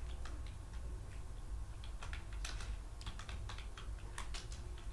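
Computer keyboard being typed on: irregular runs of key clicks as a sentence is entered.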